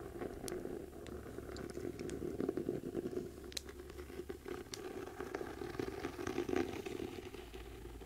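Long fingernails scratching and tapping on a worn hardback book cover, held close to a binaural ear microphone. The scratching is dense and continuous, with scattered sharp clicks of the nails.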